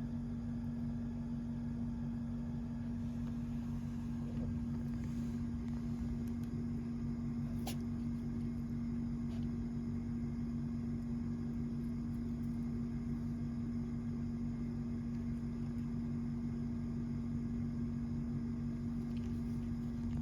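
Steady low mechanical hum, with a single short click about eight seconds in.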